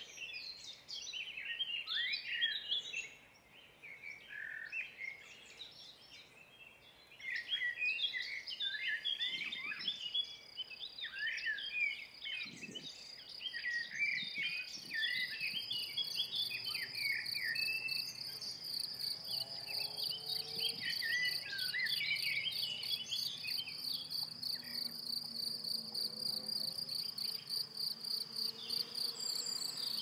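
Songbirds chirping through the first half, with a short lull a few seconds in. From about seven seconds in, a meadow insect stridulates: a steady, rapidly pulsed high trill that runs on without a break.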